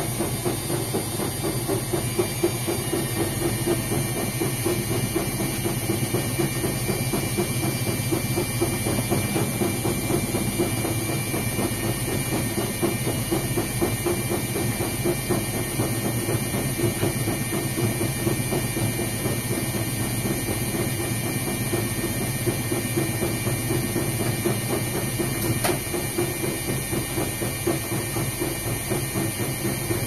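Indesit front-loading washing machine running, its drum spinning with a steady, unbroken rumble.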